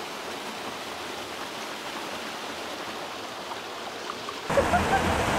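Steady rush of a river tumbling over rocks into a pool. About four and a half seconds in it turns suddenly louder and closer.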